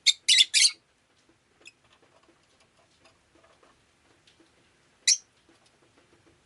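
Rosy-faced lovebird giving three sharp, shrill calls in quick succession, then a single short call about five seconds later, over faint soft ticking.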